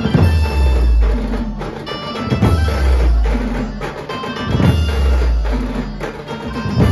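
Loud dance music played through a dhumal DJ sound system, with a deep, heavy bass and a big drum hit about every two and a half seconds.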